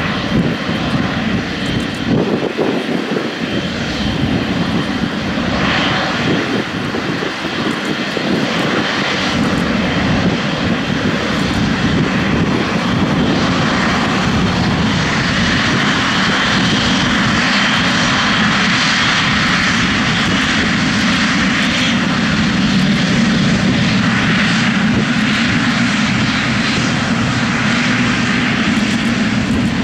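Boeing 777-300ER's twin GE90-115B turbofan engines running as the airliner taxis past close by. The steady jet noise grows louder over the first ten seconds or so as it approaches, then holds.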